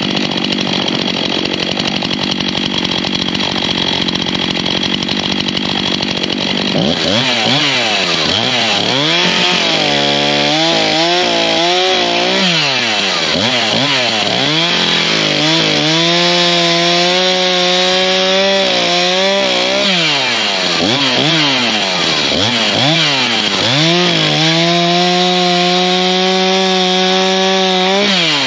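STIHL chainsaw cutting up willow logs. It runs steadily for the first several seconds, then is revved up and down repeatedly, with longer stretches held at a steady high speed during cuts.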